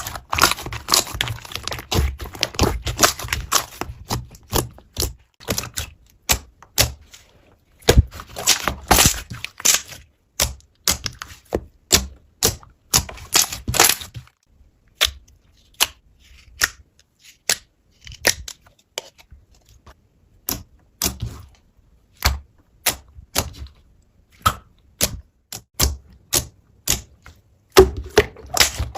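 Slime being pressed and worked by hand, giving sharp crackling pops and clicks, thick in a few clusters and then coming singly, about one or two a second.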